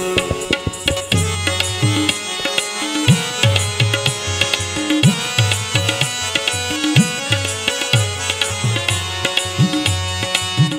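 Instrumental break in a Brahui folk song, with no singing. Hand drums beat a steady rhythm, some bass strokes bending upward in pitch, under sustained melody instruments.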